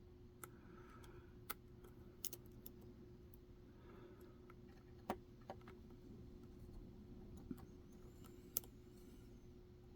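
Faint, scattered clicks, about half a dozen spread over several seconds, from a pick and tension wrench working the pins of a Schlage pin-tumbler cylinder fitted with tapered serrated security pins. A faint steady hum runs underneath.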